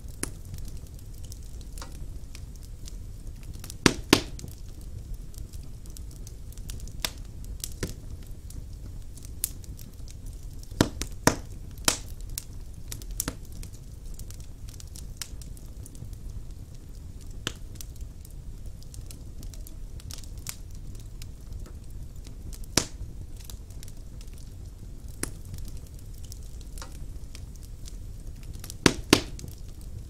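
Wood logs burning in a fireplace: a steady low rumble of the fire with scattered sharp crackles and pops, the loudest coming in quick pairs about four seconds in, around eleven seconds, and near the end.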